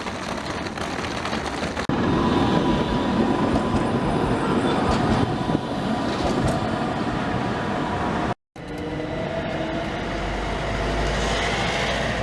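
Passenger train running along the track: a steady running noise with a faint whine. The sound changes abruptly about two seconds in and drops out completely for a moment at about eight and a half seconds.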